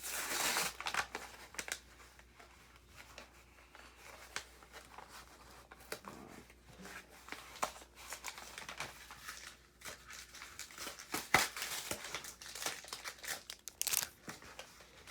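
Foil Pokémon booster pack wrapper torn open with a loud rip at the start, followed by intermittent crinkling of the wrapper and small sharp clicks as the pack and cards are handled.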